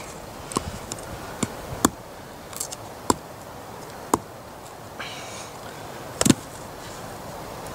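Sharp, irregular knocks of a UST ParaKnife 4.0's steel tip being jabbed into a hard wooden batoning stick, about seven strikes with soft scraping between them and the loudest near the end. The tip is not going into the wood.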